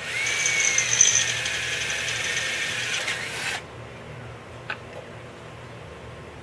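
Cordless drill boring through a metal luggage rack plate, its motor whine dropping slightly in pitch as the bit bites. It stops after about three and a half seconds, and a single sharp click follows a second later.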